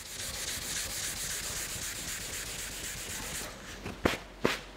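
Dry hand sanding of primer on a car body panel with a 500-grit sanding pad: a steady hiss of quick back-and-forth strokes that stops about three and a half seconds in. A couple of sharp clicks follow near the end.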